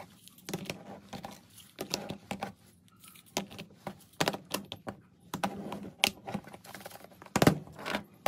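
Small clear plastic storage containers and a lidded plastic box being handled and set down on a tabletop, making irregular light clicks and clacks, with a louder knock near the end.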